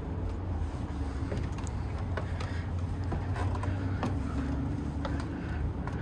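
Footsteps and knocks on wooden stairs, a scatter of short clicks and creaks, over a steady low rumble.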